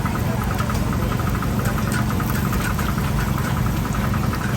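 Steady low engine hum, like an engine idling, with a fast, even ticking above it.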